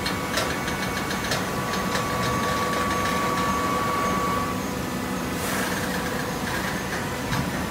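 Hydraulic cardboard baler running: a steady motor-and-pump hum with scattered clicks and knocks. A higher whine in the hum stops about four and a half seconds in, followed by a short hiss.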